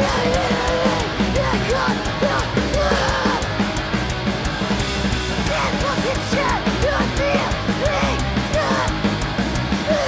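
Hardcore punk band playing live: distorted electric guitars, bass and drums at full volume, with a singer yelling into the microphone.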